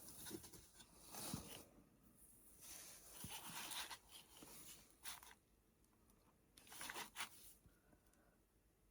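Near silence broken by a few faint, short rustles and light handling noises of paper, the last pair about seven seconds in.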